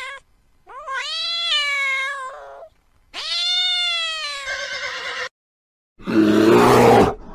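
Animal calls: two long, drawn-out pitched calls of about two seconds each, then a shorter harsh, rasping call about six seconds in that stops abruptly.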